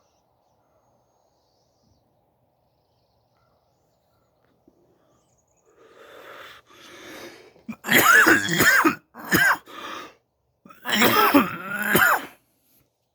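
A man coughing hard in a fit. After a few seconds of quiet come raspy breaths, then three loud, strained coughing bouts with throat clearing, near the end.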